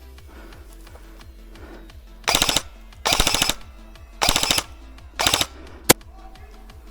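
Airsoft rifle firing four short full-auto bursts in quick succession, each a rapid rattle of shots lasting under half a second, then a single sharp snap near the end.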